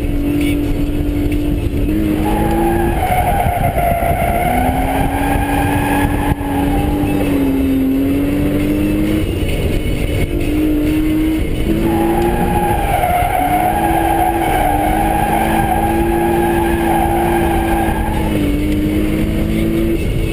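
BMW M3 engine held at high, fairly steady revs, heard from inside the cabin, with the tyres squealing through two long drifts, the first from about two to nine seconds in and the second from about twelve to eighteen seconds.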